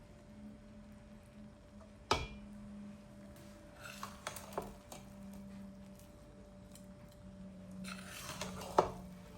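Kitchenware being handled: a sharp ringing clink about two seconds in, a few lighter clinks around four seconds, and a louder knock near the end, over a faint steady hum.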